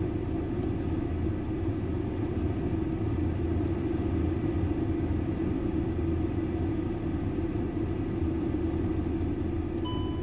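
Steady engine and road noise inside the cabin of a 2012 VW Eos on the move, with a short electronic beep from the park assist near the end.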